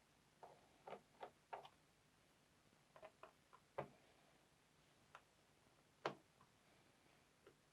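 Faint, irregular small clicks and taps from a screwdriver working the screws out of a laptop's plastic bottom cover, about ten in all, spaced unevenly.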